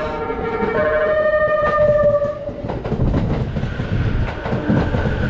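Train horn sounding in long held notes that change pitch a few times, over the heavy low rumble of a train. The horn is loudest for the first two seconds or so and then gives way to the rumble and a fainter tone.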